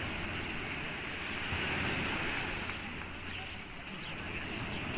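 Small Mediterranean sea waves washing onto a pebble beach: a steady hiss that swells gently about two seconds in.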